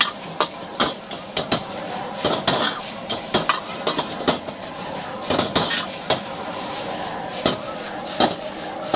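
Metal ladle and spatula clanking and scraping against a wok as noodles are stir-fried, in irregular knocks about one or two a second, over the steady sizzle of frying.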